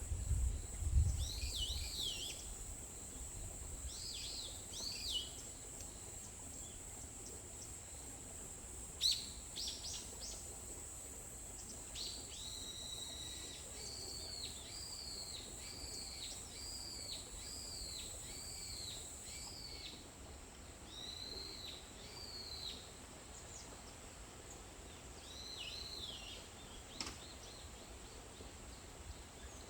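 Forest songbirds calling in short, arched chirps, with a run of about eight repeated notes at roughly two a second midway. A steady high whine runs under them and stops about two-thirds through.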